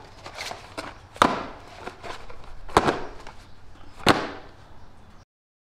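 Cardboard boxes of chainsaw chain handled and set down on a wooden workbench: three sharp knocks with rustling and handling noise between them. The sound cuts off suddenly near the end.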